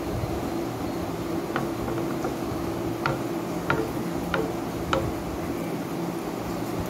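Hand eating rice from a plastic plate: five light clicks of fingers against the plate in the middle, over a steady low machine hum.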